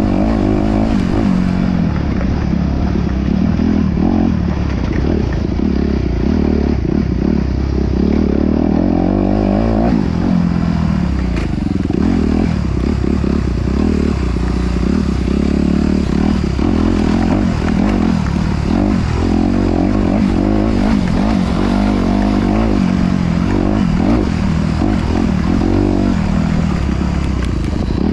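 Off-road vehicle engine running and revving up and down over and over, with frequent knocks and rattles.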